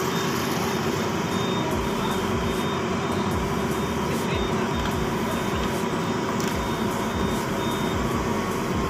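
Yanmar mini excavator's diesel engine running at a steady speed.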